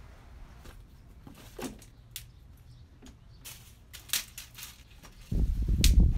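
Light scrapes, rustles and clicks of hands working soil and plastic bottles. About five seconds in, a loud, low rumbling run of rapid thuds suddenly starts and keeps going.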